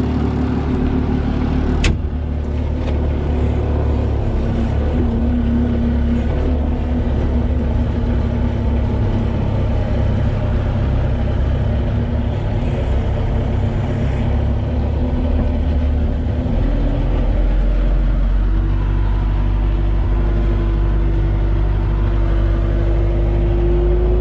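A vehicle engine running steadily, with one sharp click about two seconds in. About two-thirds of the way through, the engine's low rumble grows and its note slowly rises.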